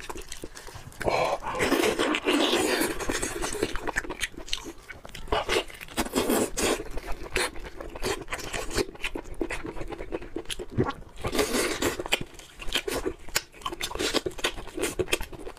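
Eating steamed chicken: wet chewing, lip smacks and slurps as soft chicken meat and skin are bitten and torn apart by hand, with many short sharp clicks and a few denser noisy stretches.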